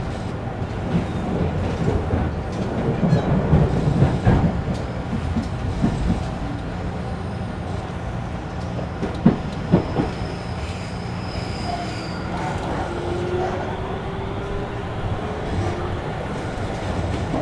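Running sound inside Tobu commuter car 59009 under way: a steady rumble of wheels on rail with two sharp knocks about nine to ten seconds in. A faint high tone slides down near the middle, and a faint lower tone rises slightly after it.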